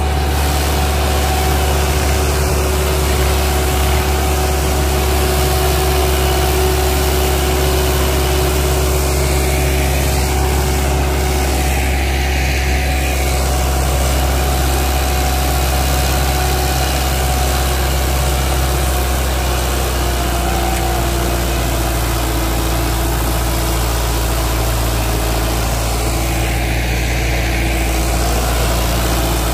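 Preet 5049 tractor's diesel engine running steadily under load as it drags a disc harrow through the soil.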